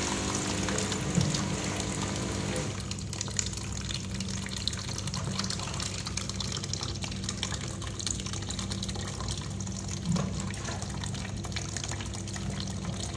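Steady rushing noise like running water, with a low hum underneath and a few small clicks.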